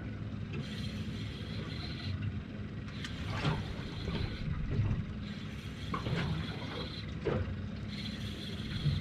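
A spinning fishing reel being wound in over the steady low hum of the boat's idling outboard motor, with a few short knocks and rattles.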